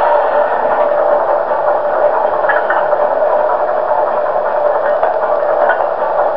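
Dapol O gauge class 08 shunter model's ProtoDrive sound decoder playing a steady diesel engine idle through the model's small speaker, a continuous throbbing hum.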